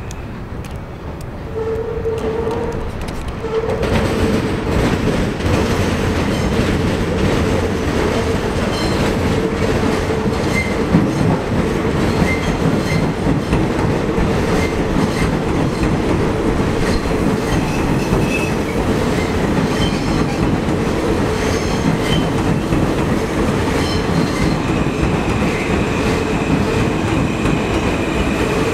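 A 10-car R160 subway train approaching and running past, its wheels clattering over rail joints and switches under a steady hum. It grows loud about three and a half seconds in, and a high steady squeal sets in near the end.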